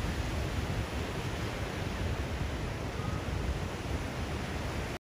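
Steady rushing noise with a low rumble, cutting off suddenly at the end.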